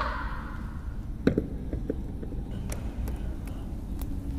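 Low steady background noise with a short knock about a second in, then a few faint clicks.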